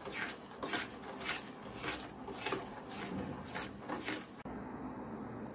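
Wooden spatula stirring sugar syrup in an enamel pan, the undissolved sugar grating against the pan bottom in short swishing strokes about twice a second. The strokes stop suddenly about four seconds in, leaving a faint steady hiss.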